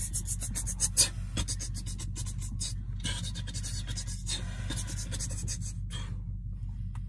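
Close scratchy rubbing and rustling in quick strokes, in bursts during the first three seconds and again about five to six seconds in, over a steady low hum.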